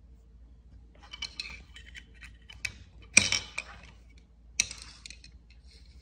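Small clicks and taps of a plastic USB dongle and its cables being handled on a marble countertop, in several short clusters, with the sharpest click a little past the middle.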